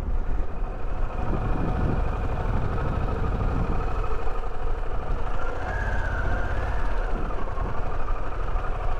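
Harley-Davidson Pan America's V-twin engine running steadily at low speed as the motorcycle rolls slowly, with wind noise on the microphone.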